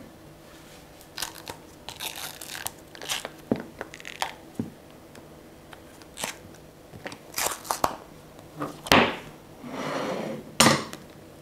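Hands popping hardened white chocolate bars out of a flexible silicone mould and laying them on a glass plate. Scattered clicks, crinkling rustles and knocks, with two sharp knocks near the end.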